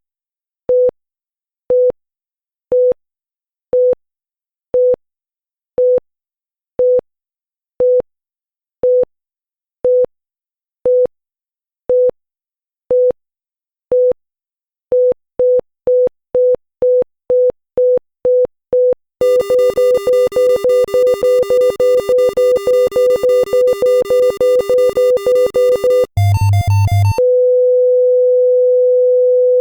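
Heart-rate monitor beeping about once a second, quickening to about two beeps a second, then beeping faster still over a steady buzzing alarm tone. After a short harsh buzz it settles into one unbroken tone near the end: the flatline that signals the heart has stopped.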